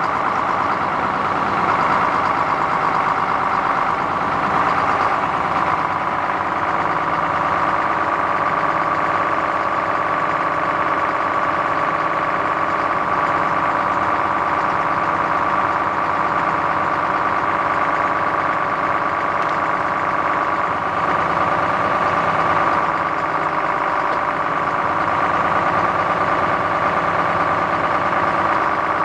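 Scania 82H truck's diesel engine running steadily while it powers the truck-mounted loader crane. A steady whine sits over the engine sound, firmest from about a third of the way in.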